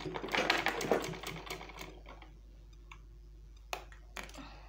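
Black domestic sewing machine stitching in a quick run for about two seconds, a rapid mechanical clatter, then stopping. A few single clicks follow near the end.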